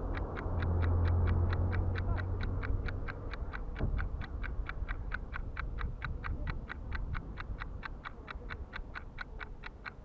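Steady, evenly spaced ticking, about five ticks a second, over low rumbling noise; a low hum swells and fades during the first three seconds.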